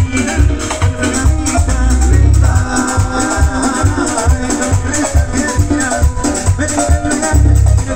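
Live band playing Latin dance music: a fast, even shaker rhythm over heavy bass beats and sustained chords.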